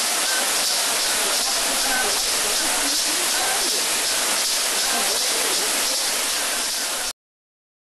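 Steady rushing of a waterfall falling into a pool, with faint voices of people mixed in; it cuts off abruptly about seven seconds in.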